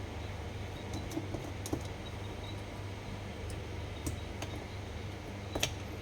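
Small parts of a Daiwa Steez SV TW baitcasting reel being handled, giving a few sparse light clicks and ticks, the loudest near the end, over a steady low hum.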